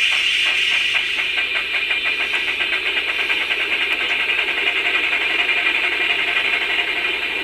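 Recorded steam-exhaust chuffs from the sound decoder of a Bachmann OO9 Baldwin model steam locomotive pulling away, the beats quickening as it gathers speed, over a steady hiss.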